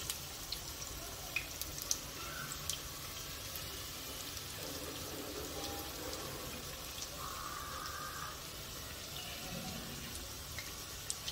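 Pakoras deep-frying in hot oil: a steady sizzle with scattered sharp pops and crackles.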